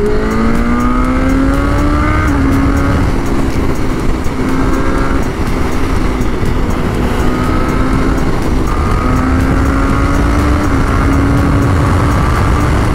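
Motorcycle engine pulling away, its pitch climbing for about two seconds before dropping at a gear change, then running fairly steady with slight rises and another drop near nine seconds. Steady wind noise runs underneath.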